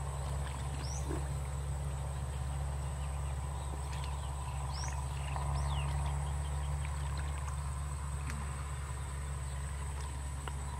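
Steady low rumble throughout, with a faint constant high whine and a few short, rising bird calls.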